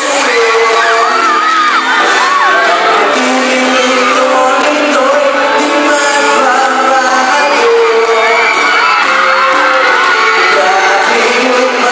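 Live pop song with a male singer amplified through a PA in a large hall, and fans screaming and whooping over the music.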